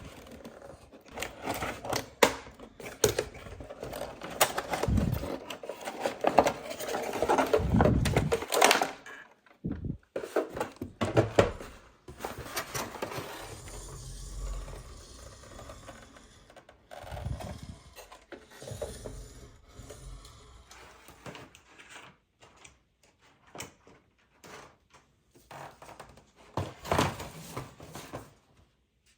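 Hands handling a toy and its packaging: dense rubbing and rustling with sharp clicks for about the first nine seconds, then quieter scattered clicks and knocks.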